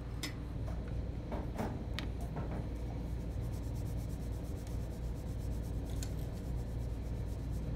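Pastel being rubbed and blended into textured pastel paper: a few light taps at first, then a fast, even scratchy scrubbing from about three seconds in. The blending makes a soft transition from light to dark.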